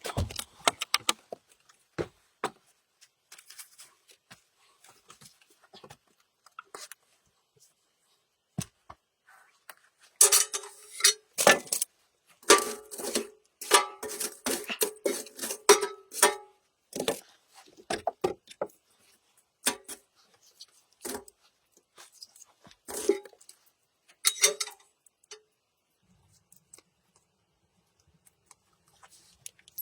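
Scattered light clicks and knocks, then a run of sharp metallic clattering and clinking about ten seconds in, lasting several seconds, with a shorter burst a little later: metal things, like cookware or utensils, being handled.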